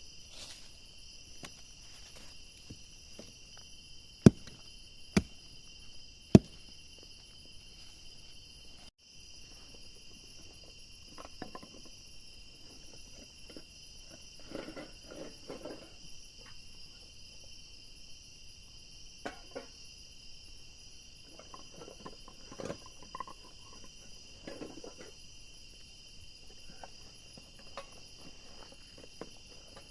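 Steady chorus of crickets and other insects, several high steady trills at once. Three sharp knocks stand out over it about four to six seconds in, with soft rustling and handling noises scattered later.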